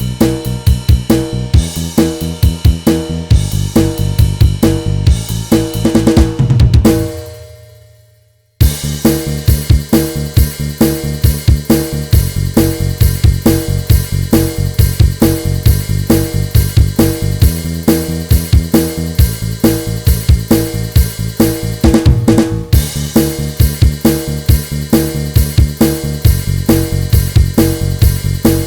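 Band backing track with the guitar part taken out: a drum kit keeps a steady beat with snare, bass drum, hi-hat and cymbals over a low bass line. About seven seconds in the music dies away to a brief silence, then the full band comes back in abruptly.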